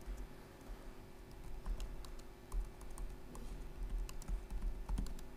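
Typing on a laptop keyboard: irregular, quick keystroke clicks, over a faint steady hum.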